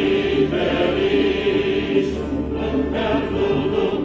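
A choir singing slow, held notes.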